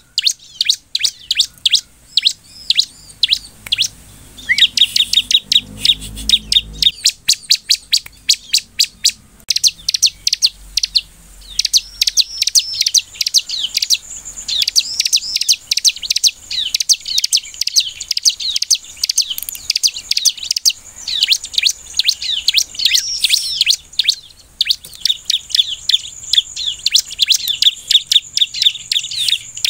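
Bar-winged prinia (ciblek) singing: long runs of sharp, rapid chirps, many notes a second, mixed with short trills and only brief pauses.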